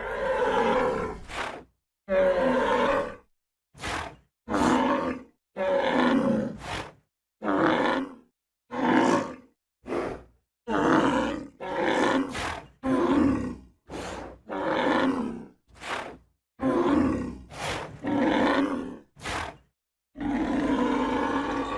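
A large animal giving a series of deep, pitched roaring calls, around one a second, each ending abruptly in silence.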